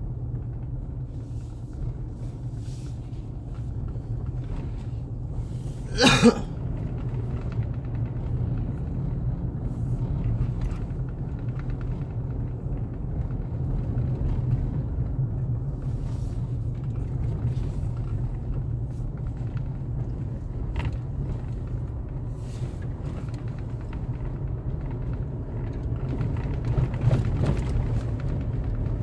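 Steady low rumble of a vehicle travelling along a road, with one brief, loud sharp sound about six seconds in.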